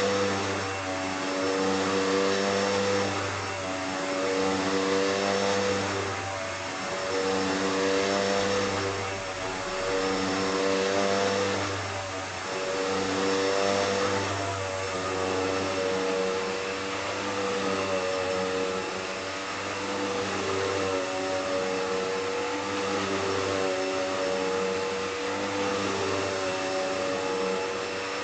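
Hoover Deluxe Elite Rewind upright vacuum cleaner running, its motor hum steady but swelling and dipping about every two seconds.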